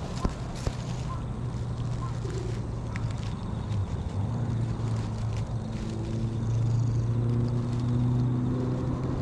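Stray cat purring steadily while being stroked, a sign it is content, with two soft knocks near the start.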